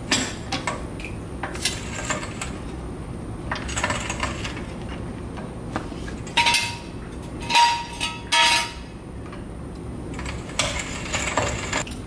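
Steel floor jack being worked under a car: a series of metallic clanks and clinks from the jack and its handle, the loudest ones ringing briefly about six and a half to eight and a half seconds in.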